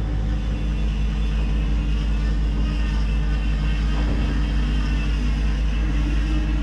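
Fishing boat's diesel engine running steadily alongside the quay: a low drone with a few steady humming tones that shift slightly in pitch.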